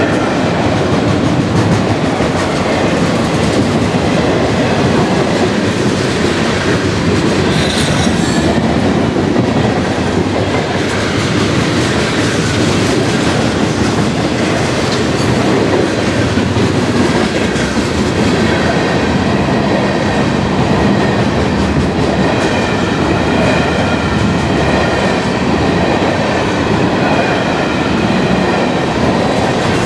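Freight cars of a mixed train rolling past close by: a steady, loud rumble and clatter of steel wheels on the rails, with a faint high wheel squeal in the second half.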